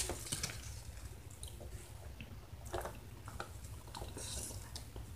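Close-miked wet chewing and mouth smacking while eating an enchilada, a scatter of short soft clicks with a brief hiss of breath now and then, over a steady low hum.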